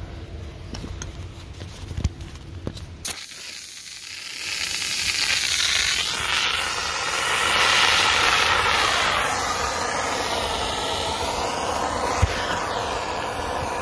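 An old, out-of-date fire extinguisher discharging through its hose. About three seconds in, a loud hissing spray starts suddenly and keeps going steadily, a sign that the extinguisher still works.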